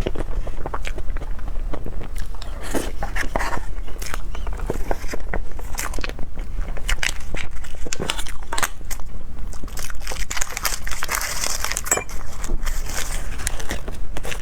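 Close-miked eating sounds: a person biting and chewing a fruit dessert, a steady run of small crunches and mouth clicks, with a stretch of rustling near the end.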